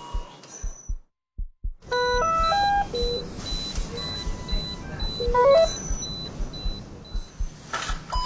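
Layered ICU medical monitors and machines: low, even thuds about three a second, cut by a sudden near-silent gap about a second in. From about two seconds in come electronic monitor beeps and alarm tones at several pitches, a fast repeating high beep and a quick rising run of tones. A short clatter follows near the end.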